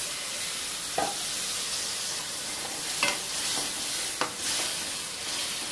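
Green chillies fried in oil sizzling steadily in a pan just after tamarind juice has been poured in, while a metal spoon stirs them and clinks against the pan three times.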